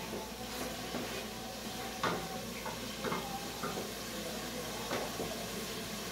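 Steady hiss of chicken cooking in masala in a stainless steel pot over a gas burner, with a wooden spoon knocking against the pot about three times.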